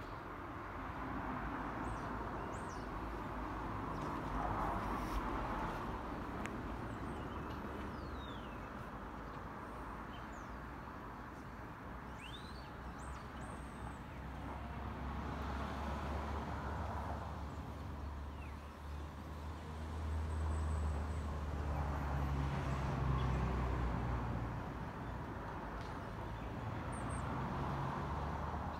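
A low, steady engine hum that swells for a few seconds about two-thirds of the way through, with small birds chirping now and then.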